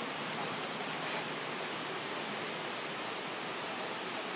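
Steady, even outdoor background hiss with no distinct sounds standing out.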